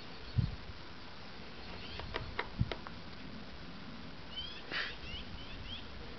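Quiet outdoor ambience with two dull thumps in the first three seconds, then a quick run of short, high chirps between about four and six seconds in.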